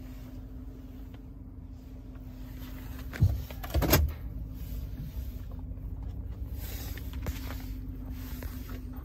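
GMC Sierra pickup's engine idling, heard from inside the cab as a low steady hum. Two knocks come close together about three seconds in.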